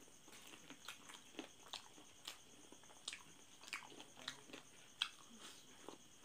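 Close-up mouth sounds of a person eating saucy chicken feet by hand: irregular short wet smacks and chewing clicks, one louder smack about five seconds in.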